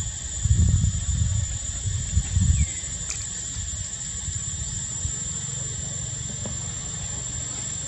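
Steady high-pitched drone of insects outdoors, with low gusty rumbling of wind on the microphone during the first few seconds.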